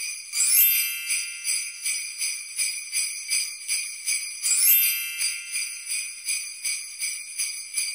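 Sleigh bells shaken in a steady rhythm, about two to three shakes a second, with a bright rising chime sweep shortly after the start and again about halfway through.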